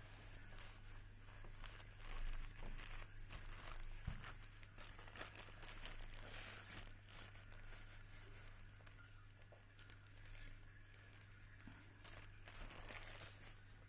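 Packaging being handled during an unboxing: irregular crinkling and rustling with small clicks, loudest around two seconds in.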